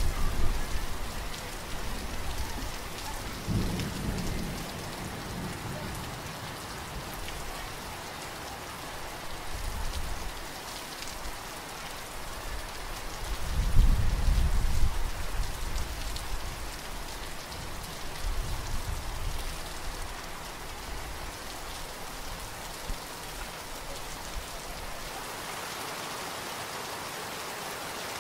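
Steady rain with thunder rumbling four times, the loudest roll about halfway through.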